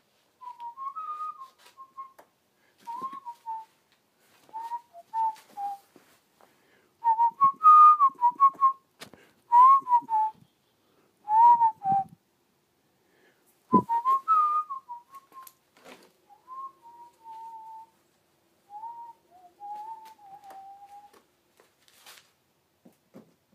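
A man whistling a tune in short, wavering phrases, with a few clicks and one sharp knock a little past the middle.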